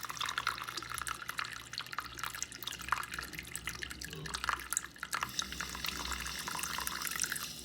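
Water dripping and splashing in many small, irregular splashes as a small pet bird plays in it.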